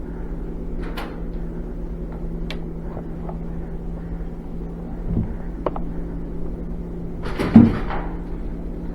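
A few sharp clicks and knocks over a steady low hum, then a louder thump with a short clatter about seven and a half seconds in.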